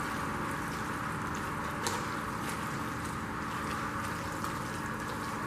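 Pulled beef being stirred into a thick blended chile sauce: steady wet mixing with a few light clicks of the utensil.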